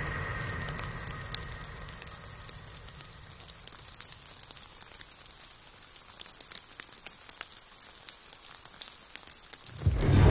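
Quiet background hiss scattered with faint, irregular ticks and crackles. A low sound carried over from before fades out over the first few seconds, and a loud low sound swells in just before the end.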